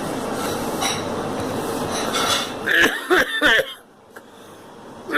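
A person coughing: a steady noisy hiss for the first half, then a quick run of about four harsh coughs about three seconds in.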